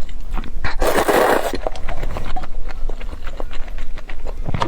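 Close-up eating sounds: wet clicks and smacks of chewing food, with one louder, noisier burst about a second in.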